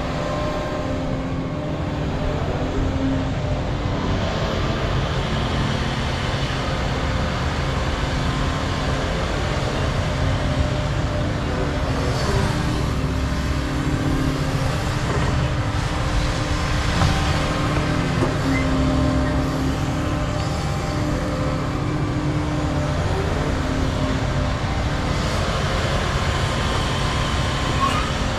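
Hydraulic excavator diesel engines running steadily under digging load, led by the nearer Cat 335 as it digs, lifts and swings, the engine note swelling and easing with the hydraulic work.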